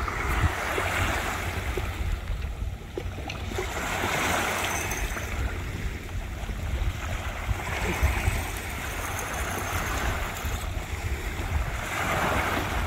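Waves breaking and washing up a beach, swelling and fading about every four seconds, with wind rumbling on the microphone.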